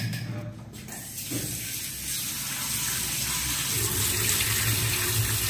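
Kitchen tap running onto peeled kiwifruit in a stainless-steel mesh colander, the water splashing over the fruit as it is rinsed; the splashing builds up about a second in and then runs steadily, over a steady low hum.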